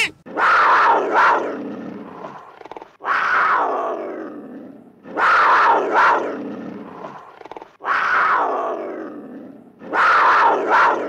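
An animal's loud, harsh call, repeated five times about every two and a half seconds; each starts suddenly and fades out over about two seconds.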